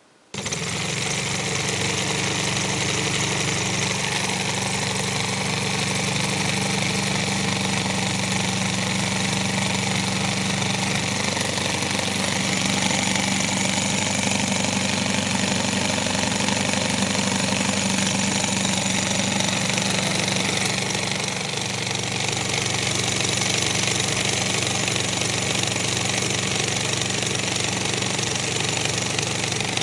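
Home-built solenoid engine made of metal construction-set parts, running steadily at speed with a fast, even mechanical buzz.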